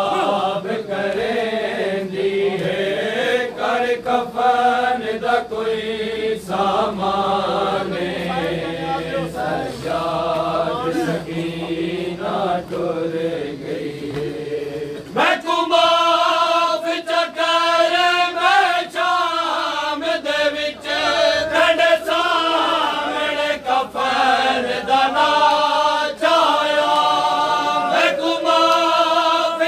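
Men chanting a noha, a Shia mourning lament, in unison. A lower group sound gives way at about 15 seconds to a higher, brighter lead line. Sharp slaps of hands beating chests in matam run through the chanting.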